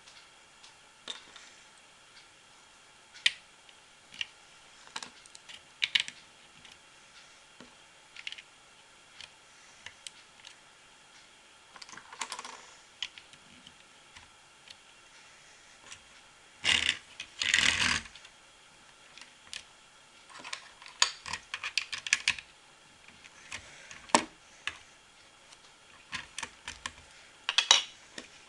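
Small plastic LEGO bricks being handled: scattered sharp clicks and taps, irregularly spaced, with two louder short bursts of clattering a little past the middle.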